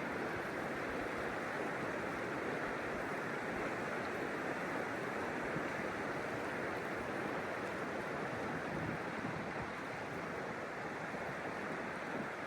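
River water rushing and flowing, a steady even roar with no breaks.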